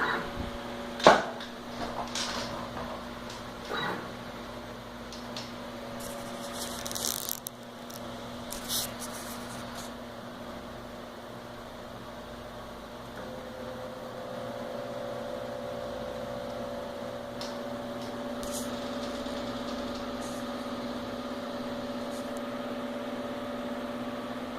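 Motors of a homemade wooden CNC machine running with a steady hum and whine. A few clicks and knocks come in the first few seconds, and a second, higher tone comes in about halfway and holds.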